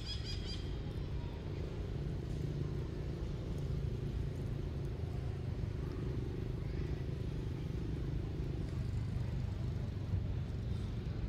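Steady low rumble of outdoor background noise, with a few brief high chirps right at the start.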